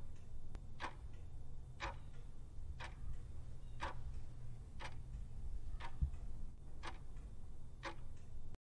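Ticking-clock sound effect keeping time for a countdown timer, one tick a second, over a low steady hum. There is a single low thump about six seconds in, and the sound cuts off just before the end.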